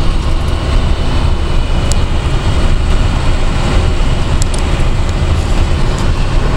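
Steady low rumble of road and engine noise inside a moving vehicle on the highway.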